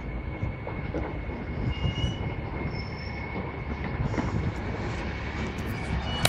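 Heavy truck hauling a lowboy trailer loaded with an old subway car: a steady, uneven low rumble from the diesel engine and rolling rig, with a faint steady high whine over it.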